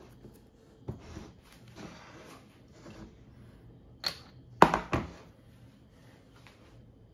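Fingers rubbing and tapping as shortcrust dough is pressed up the sides of a metal springform pan, then a few sharp knocks as the pan is shifted on the table, the loudest about four and a half seconds in.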